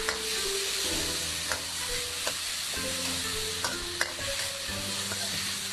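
Sliced shiitake mushrooms and minced garlic sizzling in hot oil in an iron wok as they are stir-fried, with a metal spatula clicking and scraping against the pan several times.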